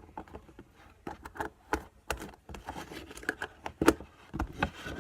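Irregular clicks, taps and light rustles of small objects being handled by hand, about a dozen sharp ticks scattered unevenly.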